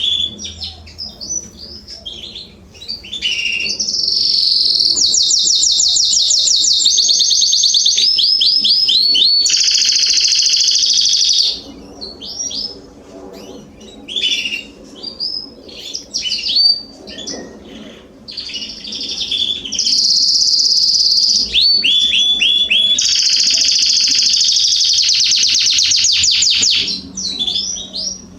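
Domestic canaries singing: long, loud song phrases of rapid trills and rolls, with a quieter stretch of scattered chirps and short phrases in the middle before the full song starts again.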